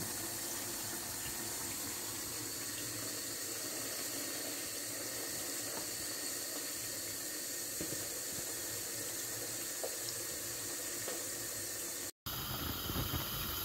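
Strips of marinated veal deep-frying in a deep pan of hot oil: a steady sizzle and bubbling, with a few faint ticks. The sound cuts out for an instant near the end.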